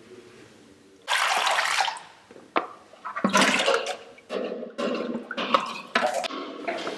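Thick cream and milk slopping and splashing as a skimmer lifts cream off a basin of milk and it is scraped into a steel pail, in several wet bursts starting about a second in, with a short metallic click between the first two.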